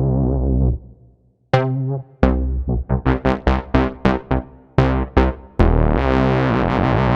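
Expressive E Osmose 49 synthesizer being played: a held note fades out, then after a short pause a quick run of short notes with sharp starts that die away, and from about three-quarters through a sustained bright chord.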